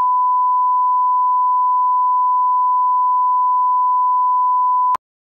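Broadcast line-up test tone: a steady 1 kHz sine-wave beep played over colour bars, held for about five seconds and then cutting off suddenly with a click.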